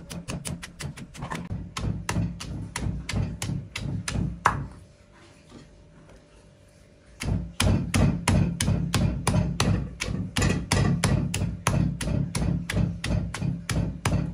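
Stone pestle pounding garlic, shallots, chillies, turmeric and lemongrass in a heavy stone mortar: quick repeated thuds, about three a second, pausing for a couple of seconds around the middle before starting again.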